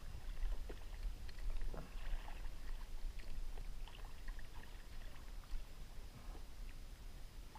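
Small waves lapping against the plastic hull of an outrigger fishing kayak, with scattered small clicks and knocks from tackle being handled, over a steady low rumble.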